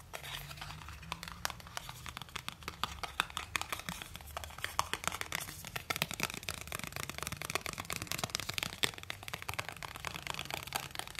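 Dense close-up crackling and small clicks of fingers handling the iPhone 13's packaging.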